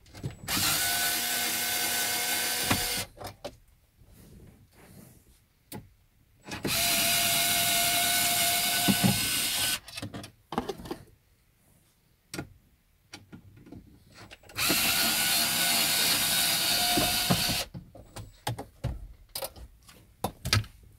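Cordless electric screwdriver running in three bursts of about three seconds each, a steady motor whine, backing out the screws that hold a car stereo in the dash. Small clicks and knocks of handling come between the bursts.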